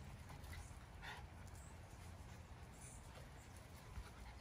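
Near silence: faint outdoor background with a low rumble, and one faint short sound about a second in.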